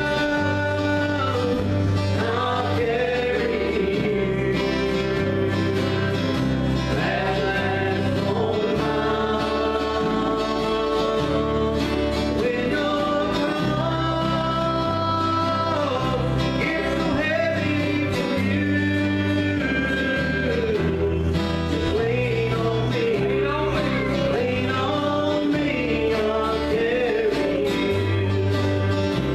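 Live country-gospel band playing: strummed acoustic guitars over a bass line stepping between notes about once a second, with a voice singing the melody.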